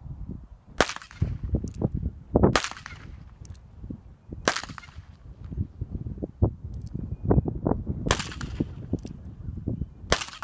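.22 pistol fired five times, roughly two seconds apart, each shot a sharp crack with a short echo trailing off. Irregular low thumps run between the shots.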